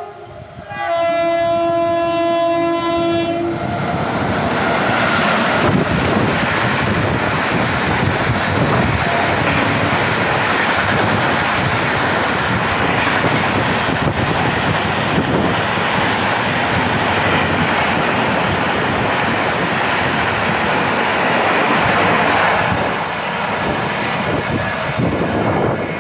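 An Indian Railways express train of red LHB coaches, the Howrah–Jabalpur Shaktipunj Express, sounds its locomotive horn in one blast of about three seconds a second in. It then runs past at speed: a loud, steady rush of wheels and coaches, with the clickety-clack of wheels over the rail joints, easing a little near the end as it goes away.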